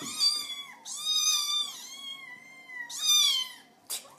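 Young kittens meowing: a quick run of several short high-pitched meows, each rising and falling in pitch, with a short click near the end.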